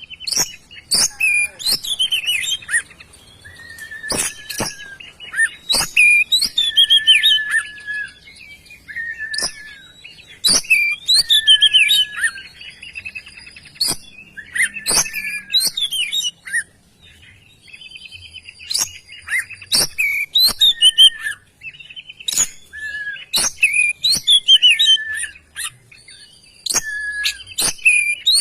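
Oriental magpie-robin (kacer) in full, vigorous song: a run of varied whistled phrases, fast rising and falling notes and sharp clicking calls, broken by short pauses.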